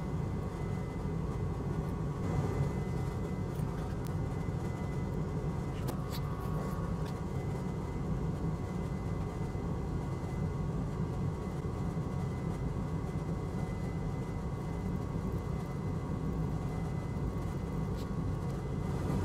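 Steady low fan hum with a faint high whine and a few faint ticks.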